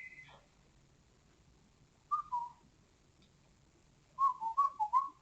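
A person whistling a tune: a two-note falling phrase about two seconds in, then a quick run of short notes near the end.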